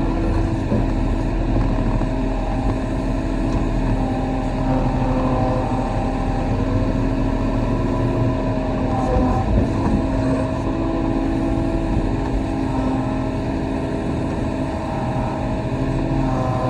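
Compact excavator's diesel engine running steadily under work, with small shifts in pitch.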